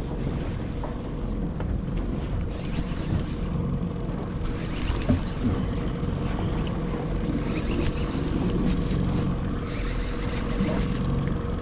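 Boat motor running steadily at trolling speed, a constant hum under wind and water noise.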